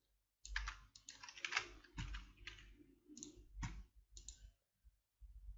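Computer keyboard keys and mouse buttons clicking: a quick, irregular run of taps.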